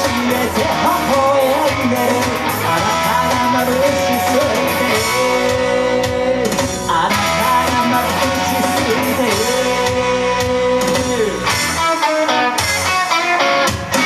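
Rock band playing the instrumental close of a song, led by guitar with long held notes. The bass end drops away near the end.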